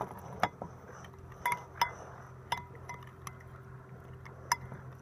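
Metal spoon stirring a thin chilli-lime dipping sauce in a glass bowl, clinking against the glass about half a dozen times at irregular intervals, some clinks ringing briefly.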